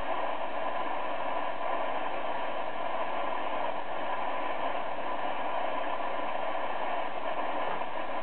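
Steady hiss of shortwave static from an Icom IC-R8500 receiver tuned in lower sideband on the 40-metre amateur band, with no voice on the frequency; a few faint steady tones sit in the hiss.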